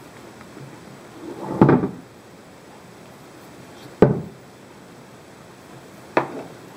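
Pelican 1400 plastic hard case being turned and set down on a wooden table, knocking against it three times: a longer, drawn-out bump about a second and a half in, then two sharp knocks about four and six seconds in.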